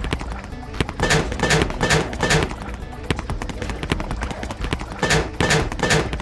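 Background music with a steady beat: short pitched notes repeating in clusters.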